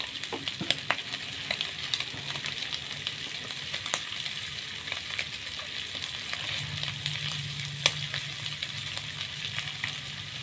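Sliced chilies, tomato and dried anchovies frying in an aluminium wok: a steady sizzling hiss with scattered sharp pops.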